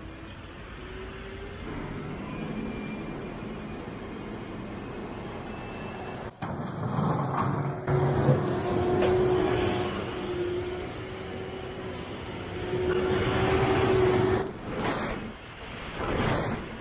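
Diesel John Deere tractors running and driving over chopped silage as they pack the bunker, a steady engine drone that grows louder in the second half as a large four-wheel-drive tractor with dual wheels approaches.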